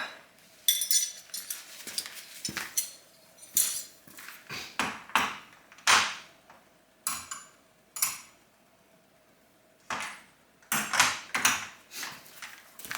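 Metal pieces and tools being handled and set down: irregular clinks and clanks, some ringing briefly, in scattered clusters with short pauses.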